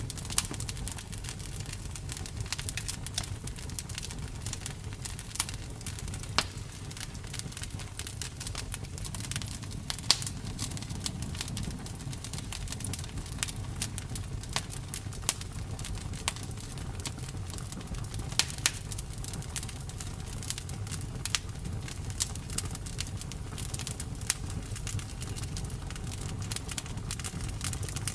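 Campfire burning: wood crackling and popping irregularly, several small snaps a second with a few louder pops, over a steady low rumble of the flames.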